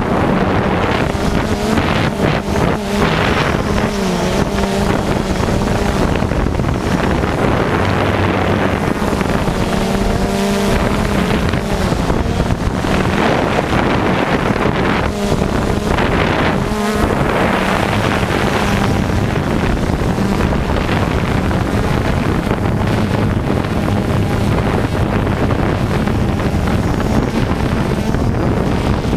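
Radio-controlled off-road cars racing on a dirt track, their small motors buzzing and revving up and down as they come and go.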